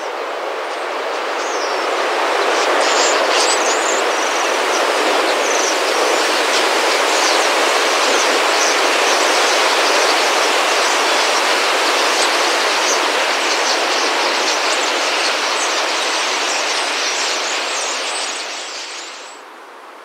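A huge flock of starlings swirling close by: a loud, steady rush of wingbeats with many high chirps scattered through it. The rush drops away suddenly near the end.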